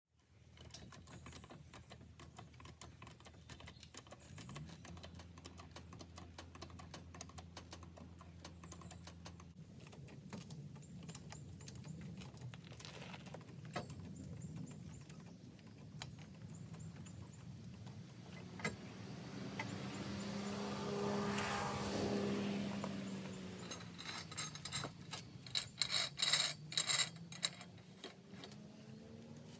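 Metal clinking and tapping from hand work on steel scaffold pipes, screw-jack base plates and a hydraulic floor jack, over a low steady hum. A louder hum swells and fades a little past the middle, and a quick run of sharp clicks comes near the end.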